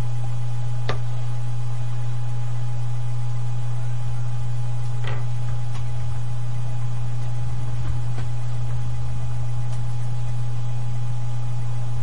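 Steady, loud low electrical hum, unbroken throughout, with a few faint, sharp clicks scattered through it.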